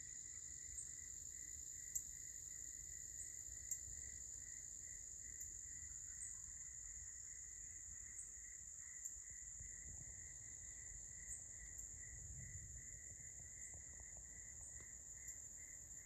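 Faint chorus of night insects such as crickets: a steady high-pitched drone with a lower, quicker pulsing trill beneath it, and a few short sharp chirps in the first four seconds.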